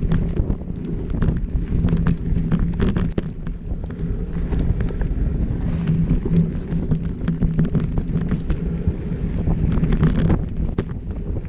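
Mountain bike descending dirt singletrack at speed: wind on the microphone and the knobby tyres' rumble over the dirt, with frequent clicks and rattles from the bike over bumps.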